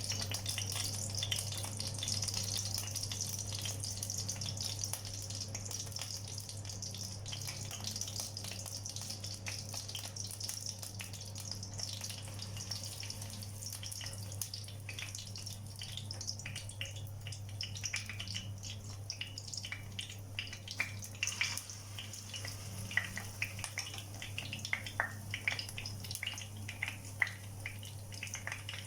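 Portions of ripe plantain batter deep-frying in hot oil: a steady sizzle with crackling pops, which come more often in the second half.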